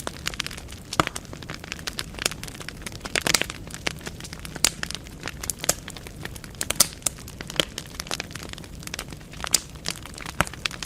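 Wood fire burning in a fireplace: logs crackling with irregular sharp pops and snaps, several a second, over a steady low rumble of the flames.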